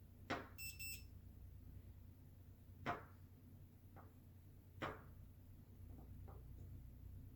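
Multimeter probes clicking against soldered header pins every second or two during a continuity check, with one short high beep from the meter's continuity tester just under a second in, the tone it gives when the probes find a connection.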